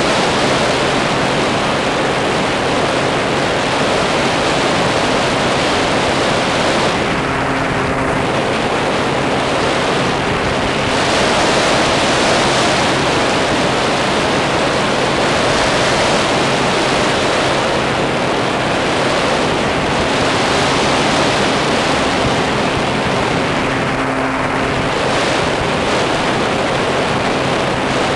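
Loud steady rush of air over the microphone of a camera carried on a flying brushless electric RC plane, with a faint steady hum from the plane's motor and propeller underneath. The hiss eases briefly a few times.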